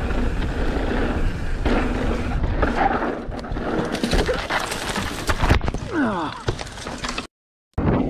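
Mountain bike riding noise: a steady loud rush with rattling and clatter from the bike on a rough trail. A short falling cry comes about six seconds in, and the sound cuts off abruptly for half a second near the end.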